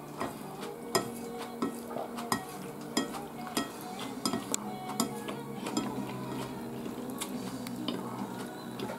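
Chopsticks and tableware clinking and tapping on bowls and plates while eating, a string of irregular sharp clicks.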